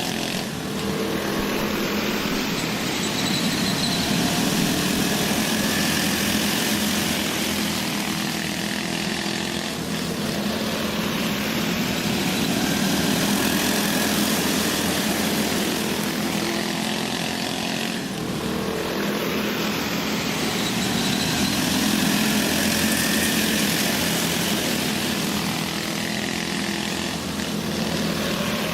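Several go-kart engines racing laps on a small dirt oval, a steady buzzing drone that swells and fades about every eight seconds as the pack comes around.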